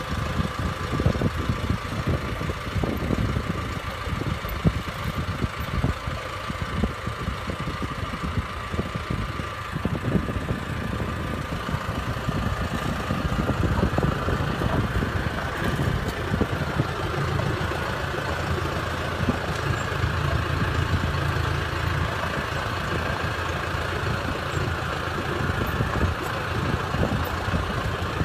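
An engine running steadily under irregular rattling and clatter; about halfway through the engine note becomes steadier and fuller.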